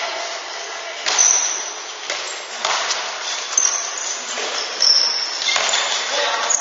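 Handball play in a large sports hall: the ball thudding on the floor and into hands as it is bounced and passed, and sports shoes squeaking briefly on the court several times, over the reverberant hum of the hall.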